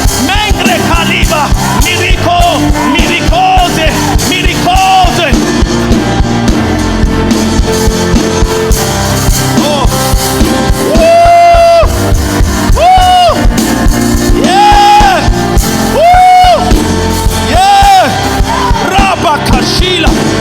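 Live church worship music: instruments playing steadily under a voice that sings long held, wordless notes, several in a row from about halfway through.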